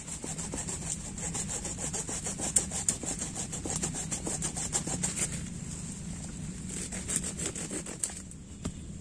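A hand pruning saw cutting through a woody lantana stem at the base of the plant, in quick rhythmic back-and-forth strokes. The strokes pause about five seconds in, and a few more follow near the end.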